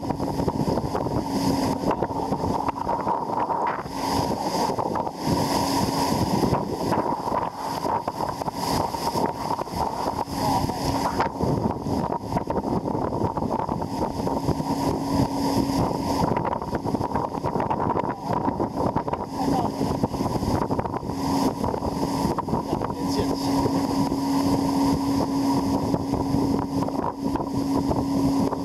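Towing speedboat's engine drone, with wind buffeting the microphone and water rushing past, as the banana boat is pulled at speed. The engine tone fades in and out.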